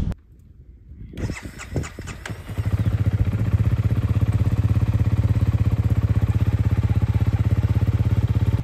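A few clicks and knocks, then a dual-sport motorcycle engine starts about two and a half seconds in and idles steadily with an even, fast pulse.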